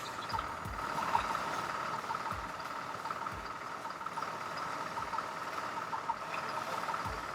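Fire truck engine idling steadily, with brief low thumps every second or so.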